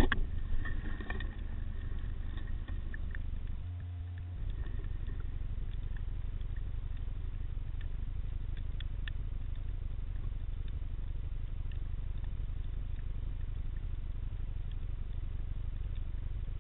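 Underwater ambience picked up through a camera's waterproof housing: a steady low rumble with scattered faint clicks, and a few louder knocks in the first second.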